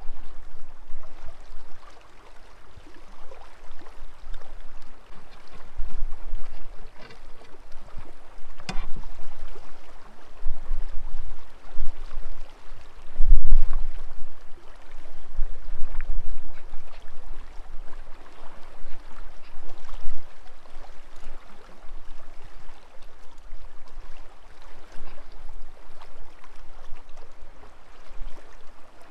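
River water rushing steadily, with gusts of wind rumbling on the microphone. A few sharp clicks sound through it, the clearest about nine seconds in.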